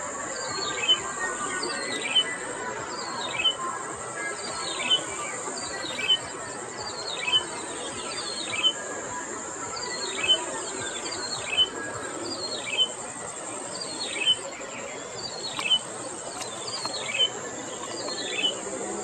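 Yellow-bellied prinia calling: a short phrase of high, downward-sweeping notes repeated about every second and a half, over a steady high insect buzz.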